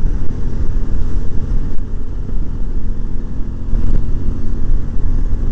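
Motorcycle engine running steadily at cruising speed on the open road, mixed with steady wind noise on the microphone.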